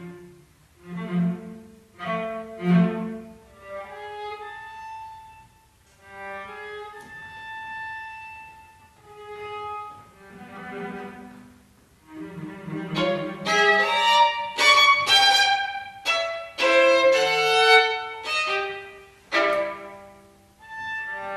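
String trio of violin, viola and cello playing contemporary chamber music: short separated strokes and a few held notes broken by pauses, then a louder passage of quick, dense accented strokes about two-thirds of the way through.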